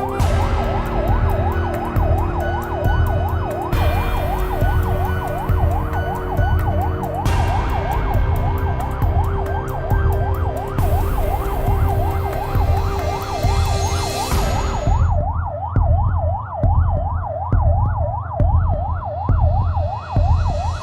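A siren yelping, its pitch sweeping rapidly up and down without a break, over a heavy pulsing low rumble. A hiss above it cuts in and out abruptly every few seconds.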